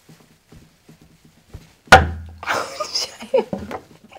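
A single heavy thump about two seconds in, sharp at the start with a short low boom after it, like a door or a wooden piece of furniture being struck.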